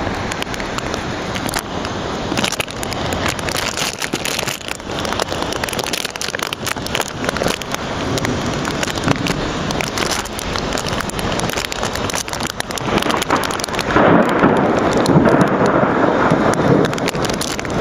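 Heavy rain in a thunderstorm, a dense crackling patter of drops hitting a surface, swelling louder for a few seconds near the end.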